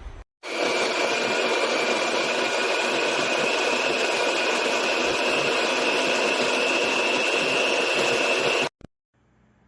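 Imarflex IBG-159C conical burr coffee grinder running, a steady motor whine over grinding noise, the whine rising slightly in pitch. It starts about half a second in and cuts off suddenly near the end.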